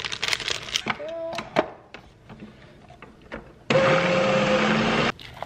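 Electric food processor motor running for about a second and a half, chopping chickpeas, baked sweet potato and parsley, its hum rising in pitch as it spins up, then cutting off suddenly. A few clicks and taps come before it.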